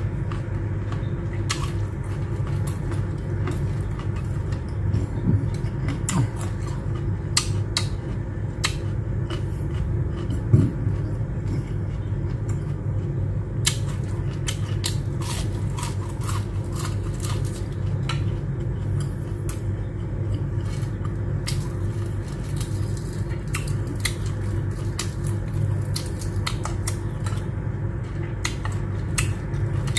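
Close-up chewing and biting of fried shrimp tempura, with many short crisp clicks and mouth smacks scattered throughout, over a steady low hum.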